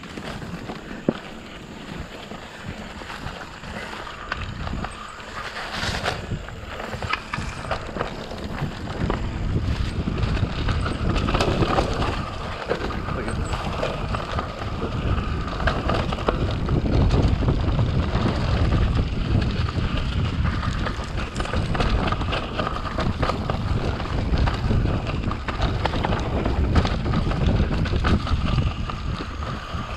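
Mountain bike riding over a dirt singletrack trail: tyres crunching over dirt and leaves, the bike rattling and knocking over bumps, and wind buffeting the microphone. It grows louder from about ten seconds in.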